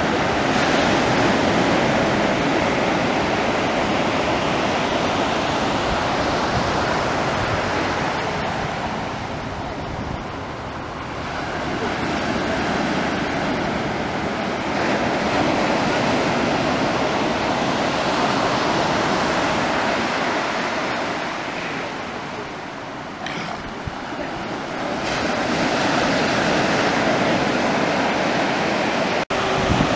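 Ocean surf washing onto the beach in a steady rush that swells and eases every few seconds, with some wind on the microphone.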